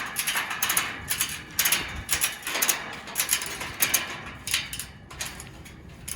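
Ratchet strap buckle being cranked to tighten the strap: the pawl clicks over the ratchet teeth in repeated bursts, about two strokes of the handle a second, thinning out near the end.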